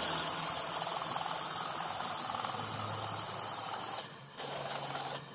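Pillar drill with an HSS hole cutter boring through thick flat steel bar: a steady high hiss of the cutter cutting metal over the motor's low hum. The hiss drops away briefly about four seconds in, then resumes.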